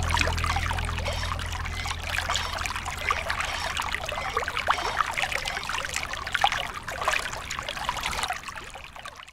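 Water trickling and pouring in a small stream with little splashes, over a low hum that fades out in the first few seconds. The sound cuts off suddenly at the end.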